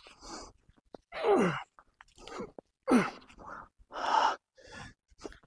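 A man grunting and exhaling hard as he strains through pull-up reps, a grunt or forceful breath about every second. The strongest are falling-pitch grunts about a second in and again about three seconds in.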